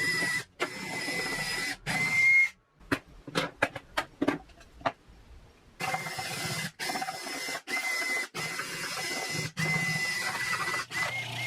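Makita RT50D cordless trimmer (router) running and cutting, with a steady high whine, in short clips broken by abrupt cuts; a quieter stretch of scattered clicks and taps comes in the middle.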